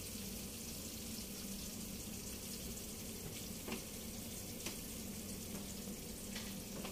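Royal bibingka sizzling in its metal pan in a hot oven: a faint, steady hiss with a few small ticks, over a low steady hum.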